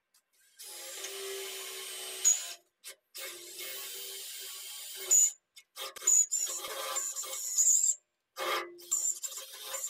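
Cordless drill boring into the steel of a tractor loader bucket. It runs with a steady motor whine in stretches of one to two seconds, stopping and restarting several times, with a few sharp loud clicks along the way.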